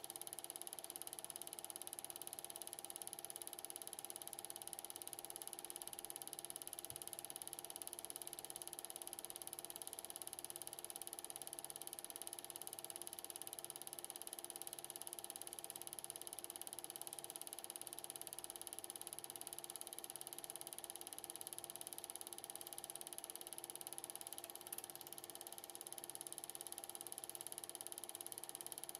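Standard 8mm film projector running: a faint, steady mechanical whir with several constant whining tones.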